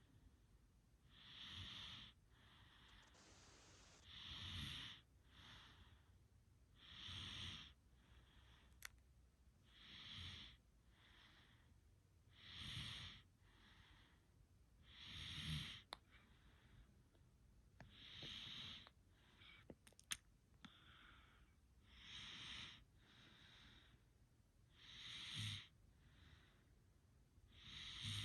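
Soft, slow snoring of someone asleep: a hissing breath about every two and a half to three seconds, each followed by a weaker one, with a few faint clicks between.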